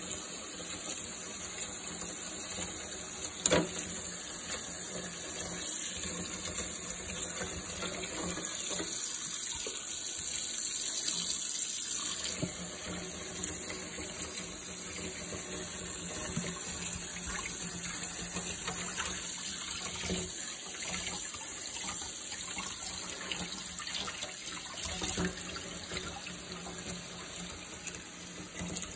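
Kitchen tap running into a stainless steel sink, the stream splashing steadily over the fish and hands in the basin. The splashing grows a little louder around ten to twelve seconds in. A sharp knock comes about three and a half seconds in, with a few smaller knocks scattered through.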